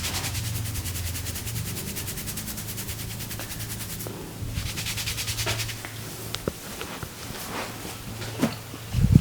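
Rapid, even hand strokes of an Indian head massage, about ten a second, over a steady low hum. They stop about four seconds in, leaving scattered light clicks and then a loud thump near the end.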